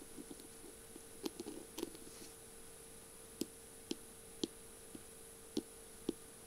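Long fingernails tapping on a beaded, rhinestone-studded feather pen: sharp, separate clicks, irregular and about one every half second, with a brief scratchy flurry about a second and a half in.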